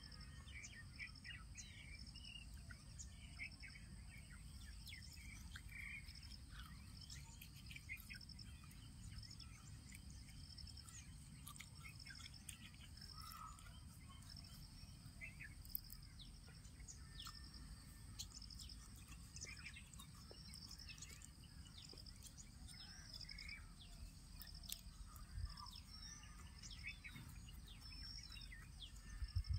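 Faint rural outdoor ambience: an insect chirping in an even, repeating rhythm over a steady high whine, with scattered bird chirps, a low rumble and a few faint clicks.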